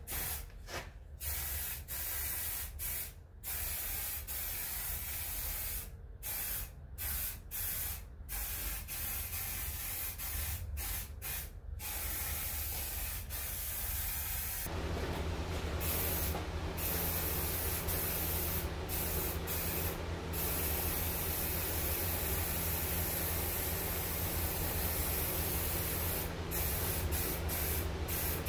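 Aerosol can of flat-black high-heat spray paint hissing in short bursts with brief gaps for the first twelve seconds or so, then spraying almost without a break. A steady low hum runs underneath.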